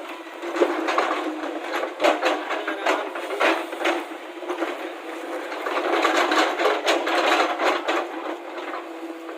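A steady engine hum under irregular knocking and rattling, with sharp knocks scattered throughout and a denser rattling stretch about six to seven seconds in.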